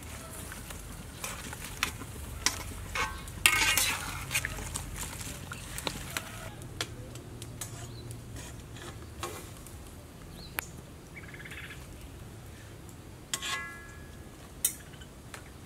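Metal tongs clicking and knocking against a wok while green onions are blanched in boiling water, over a steady low hiss of the boiling water. The knocks are scattered, with a short cluster of clatter about four seconds in and another near the end.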